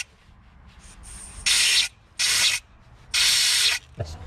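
Compressed air blown in three short hissing blasts into the cylinder head stud holes of a C20LET engine block, clearing debris out of the holes.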